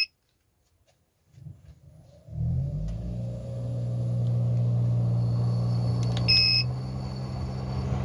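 12V inverter air conditioner for a camper starting up. About two seconds in, a steady low hum and a rush of air set in as the unit gets going. About six seconds in, its control panel gives a short electronic beep.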